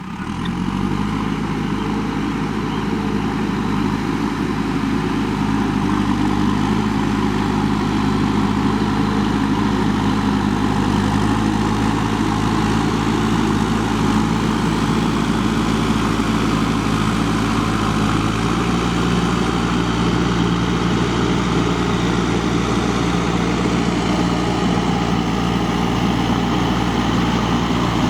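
JCB 3DX backhoe loader's diesel engine running steadily, its note climbing in the first second and shifting slightly about two-thirds of the way through.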